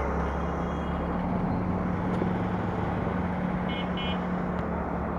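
KPR motorcycle running steadily on the road, with wind and road noise. Two short high beeps come close together near the end.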